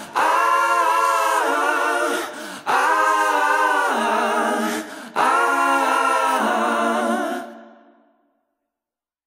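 Background music: sung voices in three long phrases with wavering held notes, fading out near the end.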